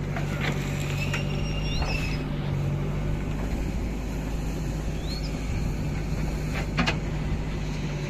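JCB backhoe loader's diesel engine running steadily under digging load while the bucket lifts and dumps soil, with a few sharp clanks of the bucket and stones.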